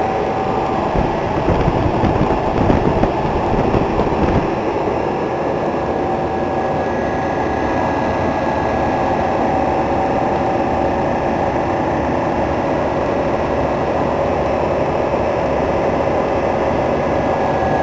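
Older commercial refrigeration condensing units running: three-phase compressors making a steady, pretty loud mechanical hum with a few constant tones held through it.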